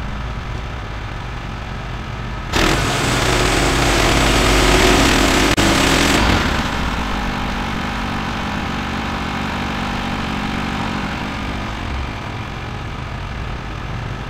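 Bandsaw mill's small gasoline engine running steadily while the band blade saws through a Douglas fir log. The sound turns much louder and harsher from about two and a half seconds in until about six seconds, then settles to a steadier run.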